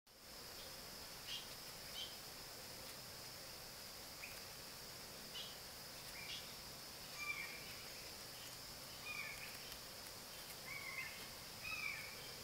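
Faint woodland ambience: a steady high insect drone, with short bird chirps scattered through and more of them in the second half.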